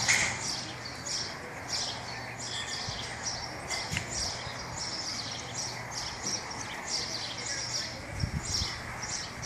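Small birds chirping over and over, short high chirps about twice a second, over a low steady hum.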